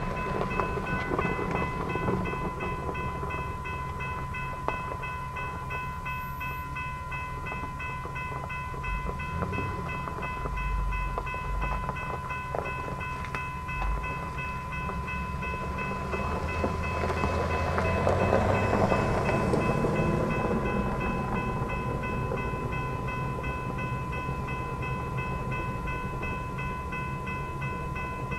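Loaded coke hopper cars of a freight train rolling slowly through a grade crossing, a continuous low rumble with occasional wheel knocks that swells for a few seconds past the middle. Over it the crossing signal's warning bell rings steadily.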